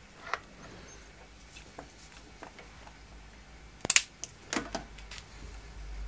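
Small clicks and taps of hands working wires and a soldering iron at the terminals of a microwave oven transformer. About four seconds in, a quick cluster of sharp clicks and clatter as the soldering iron is put down, then a low rumble near the end.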